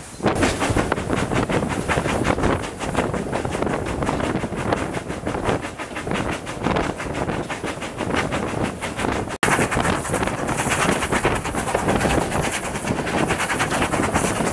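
Narrow-gauge steam train running at speed, heard from an open carriage window: a fast, even beat of wheels and exhaust with rushing wind noise. The sound breaks off for an instant about nine seconds in, then carries on.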